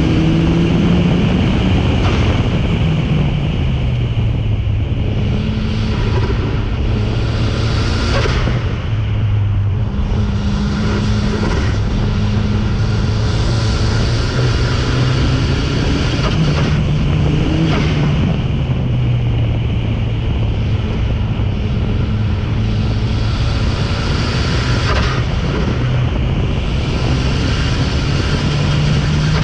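Race car engine running hard through a hill climb run, its pitch climbing and dropping again and again as it shifts gears and slows for corners, with wind buffeting the microphone.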